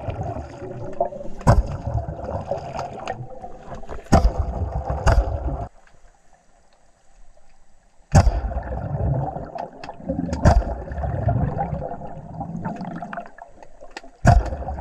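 Underwater bubbling and rushing air, broken every few seconds by sharp pops: blasts of air from a scuba-tank-fed bubble ring gun. Everything goes nearly quiet for about two seconds in the middle.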